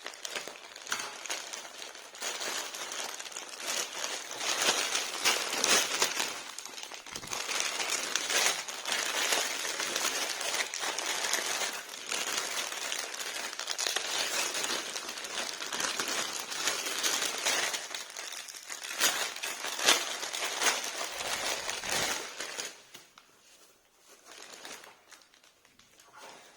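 Parcel packaging crinkling and rustling as it is handled and opened, with sharp crackles now and then. It dies down near the end.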